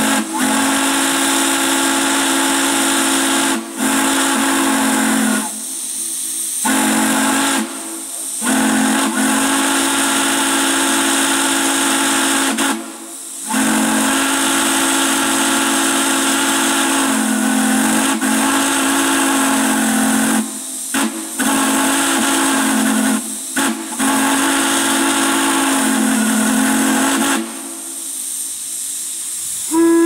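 A multi-chime railroad steam whistle blowing a deep, steady chord in a run of long blasts broken by short gaps, with the hiss of escaping steam throughout. Near the end the whistle stops and only the steam hiss is left.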